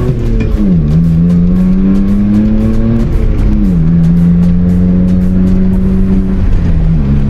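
Maruti Suzuki Alto K10's three-cylinder engine accelerating through a custom 2-inch exhaust with an SC Project muffler, its bypass valve open for a loud sports-car-like note, heard from inside the cabin. The pitch climbs slowly in each gear and dips at the gear changes, about a second in, about three and a half seconds in and near the end.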